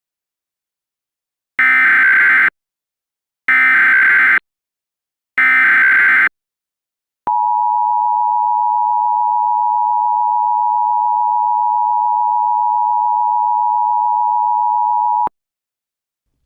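Emergency Alert System header: three separate bursts of shrill, buzzy data tones, each about a second long, followed by the EAS attention signal, a steady two-note beep held for about eight seconds that cuts off suddenly. The data bursts carry the alert's coded header and the two-note tone is the signal that announces an emergency alert.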